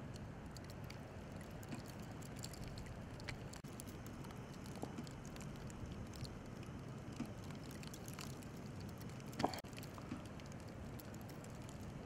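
Outdoor ambience in falling snow: a steady low rush with faint scattered ticks, and one sharper click about nine and a half seconds in.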